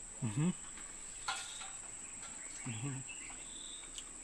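Steady high-pitched insect trill, like crickets, with two short voice sounds, one just after the start and one near three seconds in, and a small click about a second in.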